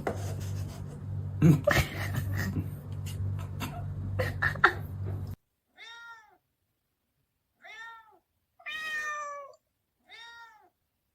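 For about five seconds, clattering and sharp knocks over a steady low hum. Then it cuts off abruptly, and a cat meows four times, the third meow longest and loudest.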